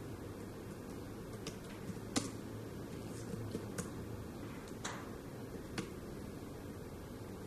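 Irregular taps and clicks of typing on a tablet's touchscreen keyboard, about eight separate clicks over a steady low hum, the loudest a little after two seconds in.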